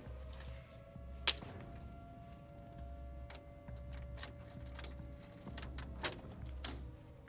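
Keys jangling and clicking at a door's lock and lever handle, with a sharp metallic click about a second in and a few more clicks near the end, over a faint steady tone.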